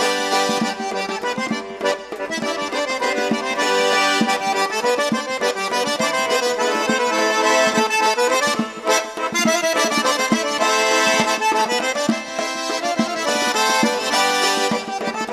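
Accordion music: a continuous melody over sustained chords.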